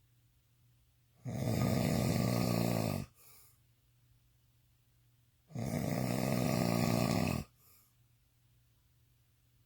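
Intense snoring from a drunk man asleep: two long, loud snores about four seconds apart, each nearly two seconds long, each followed by a short faint sound.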